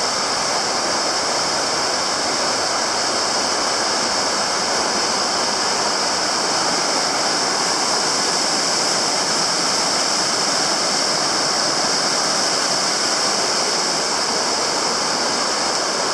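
Steady, even rush of water from Mist Falls, a waterfall, running without change.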